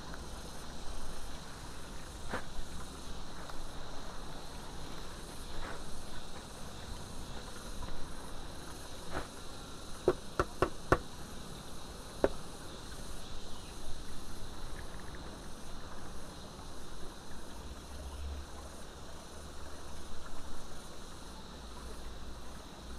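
Insects chirping steadily, with a quick cluster of four sharp clicks about ten seconds in and one more click a second later.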